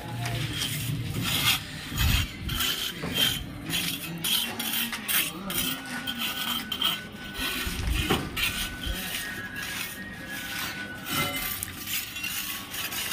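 Irregular hand-work noise on a brick-dome building site: repeated scraping and rubbing, with short clinks and knocks from tools and materials.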